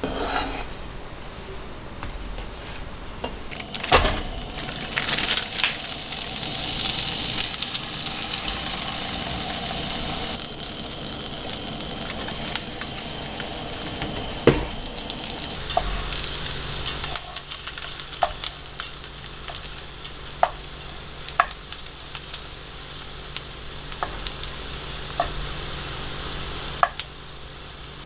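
Food sizzling in a frying pan, with scattered sharp clicks of a utensil against the pan. The sizzle is strongest through the first half and then dies down.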